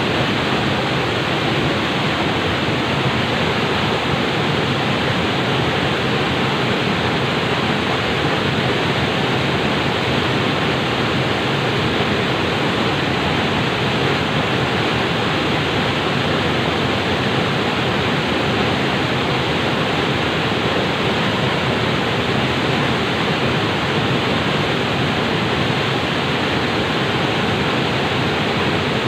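Flowing water rushing in a steady, unbroken stream.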